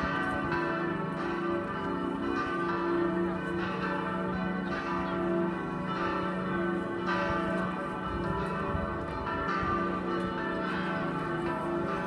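A partial peal of four swinging church bells of the Karlskirche ringing together: the two 1736 Dival bells, 'Zwölferin' (1,400 kg, d') and 'Wiednerin' (1,100 kg, e'), with two 2013 Perner bells (706 kg, f♯' and 421 kg, a'). Strikes come irregularly and overlap, each tone ringing on under the next.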